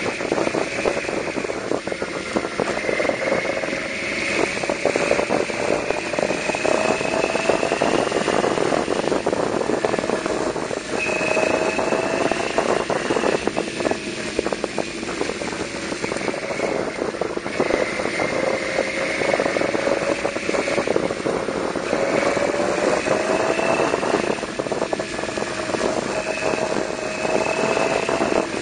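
Yamaha V-Max 1200's V4 engine pulling the bike along, its pitch climbing for a few seconds, dropping back and climbing again several times as the rider rolls on and off the throttle through the bends. A steady rush of wind and road noise runs under it.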